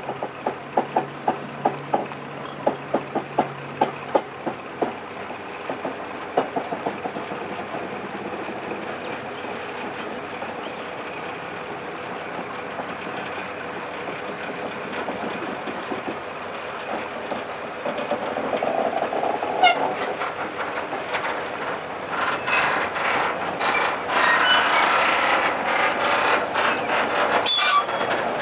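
A small narrow-gauge diesel switcher locomotive creeps along the track, towing a dead steam locomotive. A quick run of ticks and the engine's low hum come first, then rolling wheel and rail noise that grows louder, with metallic clanks and squeaks as the locomotives pass close by.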